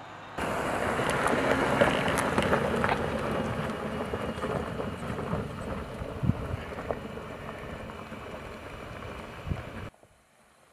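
Jeep Gladiator pickup driving on a dirt and gravel track: engine running under the steady crunch of tyres on gravel, with scattered small pops of stones. It starts abruptly, fades gradually, and cuts off sharply near the end.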